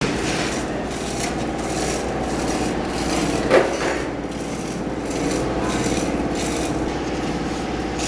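Steady rubbing, rasping noise in uneven strokes over a low hum, with one sharp knock about three and a half seconds in.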